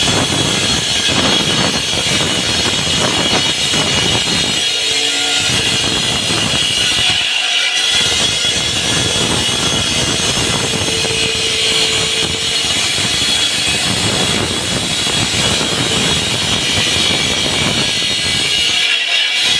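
Concrete slab cutting saw running and cutting, a loud steady grinding noise with a constant high whine, its lower rumble easing off briefly a few times.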